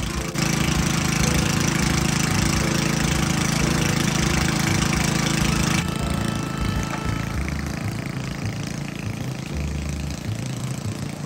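Small gasoline engine of an old walk-behind rotary lawn mower running steadily. It gets louder just after the start, and its sound changes about halfway through as the mower is pushed across grass.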